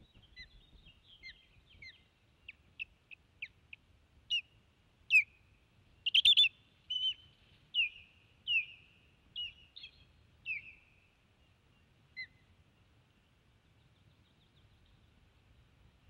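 Osprey alarm calls: a series of sharp, high whistled chirps that quicken and grow louder into a rapid, loudest cluster about six seconds in. They then turn to downward-slurring calls and stop after one last call about twelve seconds in. These are defensive calls at an intruding osprey trying to land on the nest.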